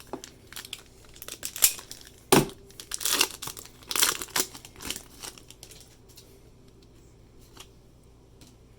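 A foil trading-card pack wrapper being torn open and crinkled, with a few sharp louder rips, the crackling dying down after about five seconds.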